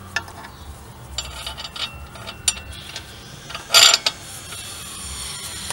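Sharp metal clicks and clinks as a new wheel stud is handled and fitted into a rear wheel hub flange, with one short, louder rattling burst just under four seconds in. A thin high squeak sets in near the end.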